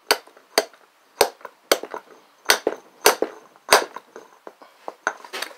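Sharp metal knocks on a go-kart wheel hub as a worn bearing is driven out: seven strong blows about half a second apart, then a few lighter taps near the end.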